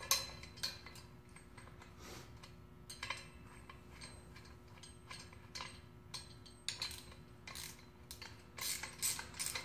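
Wrenches clicking and clinking on a steel bolt, washer and fitting as a nylon-insert lock nut is tightened onto a through-bolt. The scattered metallic clicks come closer together near the end.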